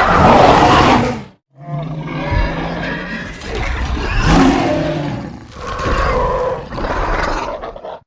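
Custom dinosaur roar sound effects for an Indoraptor creature. One roar ends about a second in, and after a brief silence a long roar follows that swells several times before cutting off near the end.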